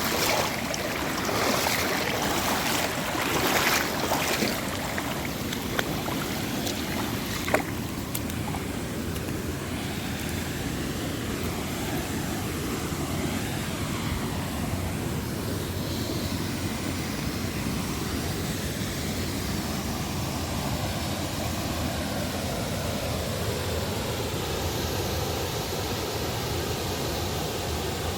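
Waterfall water rushing in a steady, even roar of noise. For the first four seconds it is louder and uneven, and two sharp clicks come about six and seven and a half seconds in.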